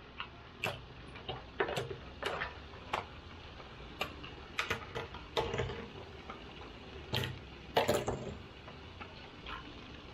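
Irregular plastic clicks and clacks as small clear plastic cases are snapped open and shut and plastic fidget spinners are handled and set down on a wooden table, the loudest clack about eight seconds in.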